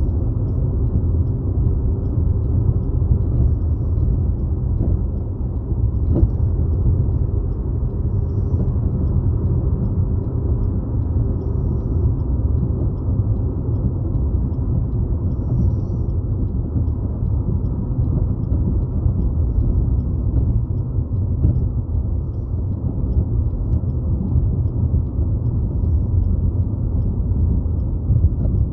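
Steady low rumble of a car travelling at road speed, heard from inside the cabin: engine and tyre noise with no change through the stretch.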